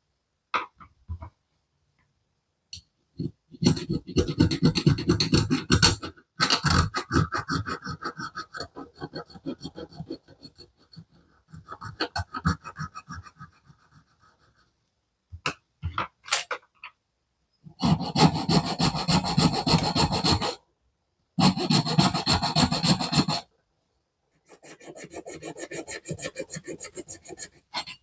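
Hand file rasping quickly back and forth on a piece of plastic sprue, shaping it. It comes in several separate spells of rapid strokes that start and stop abruptly.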